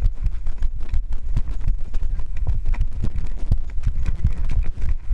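A GoPro in a harness on a running dog's back, knocking and jostling with each stride, with a constant low rumble of wind and handling noise on the microphone.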